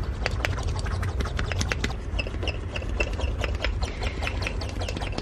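Small brass blowlamp parts worked by hand: rapid, irregular metal clicks and scrapes, with a short squeaky tone about two seconds in, over a steady low hum.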